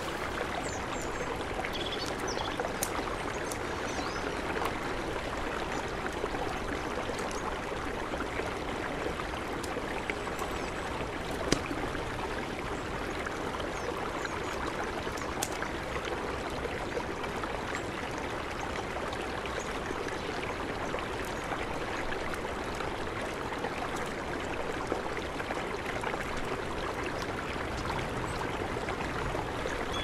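Steady rush of a mountain river, with a few sharp pops and crackles of a campfire scattered through it, one louder snap near the middle.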